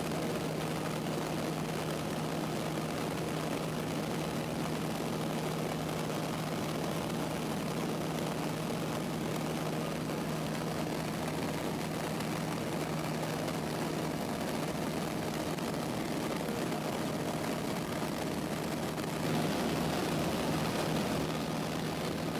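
Cessna 152's four-cylinder Lycoming engine and propeller droning steadily in flight, heard from inside the cabin together with the rush of air. The sound swells louder and hissier for a few seconds near the end.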